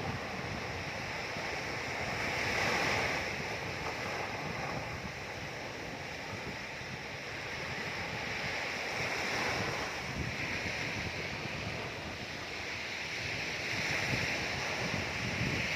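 Ocean waves breaking and washing in a steady hiss of surf, swelling and easing about every five to six seconds.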